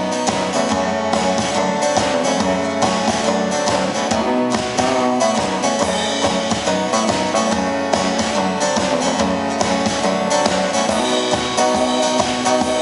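A live indie pop band playing an instrumental passage with no vocals: strummed guitar over a steady beat.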